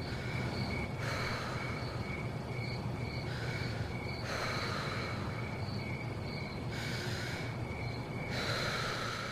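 A sleeping person breathing heavily: about five slow, noisy breaths, over steady, evenly pulsed cricket chirping.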